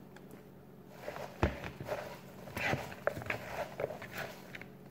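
Hand tossing and working kale leaves with diced tomato and onion in a large plastic bowl: irregular crisp rustling and crunching of the leaves, with one dull thump about a second and a half in.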